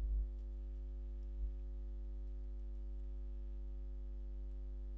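Steady low electrical mains hum on the recording, with one faint soft bump about a second and a half in.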